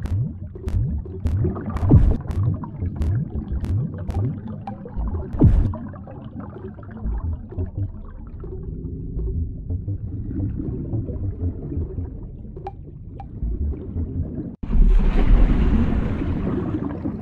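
Cartoon underwater sound effect: low bubbling and gurgling with short rising bubble sounds, and a run of light clicks in the first few seconds. Near the end, after a brief drop-out, a louder rush of water noise starts suddenly.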